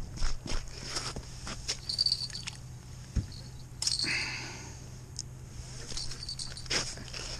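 Boots crunch on snow-crusted ice for a few steps and then stop. About four seconds in there is a brief rustle of clothing and light handling noise as the tip-up's line is taken up at the ice hole.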